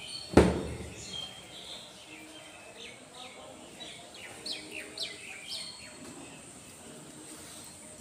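A single loud thump about half a second in, then birds chirping with a string of short, quickly falling high calls for several seconds.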